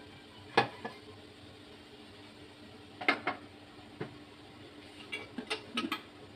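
Aluminium steamer clanking as its tier is handled and set onto the pot on the gas burner: one sharp metal knock, a double knock and a single knock a few seconds later, then a quick run of lighter clinks near the end.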